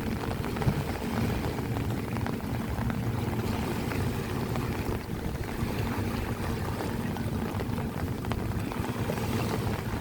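A motor running steadily, a low drone with a faint hum, under wind noise.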